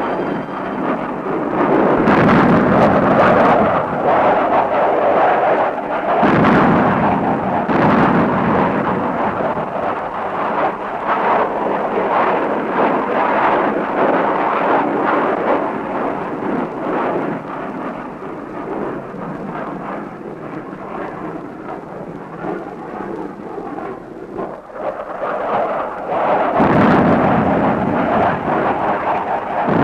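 Battle sound effects of explosions: a continuous heavy rumble of blasts, with big detonations about two seconds in, about six seconds in, and again near the end.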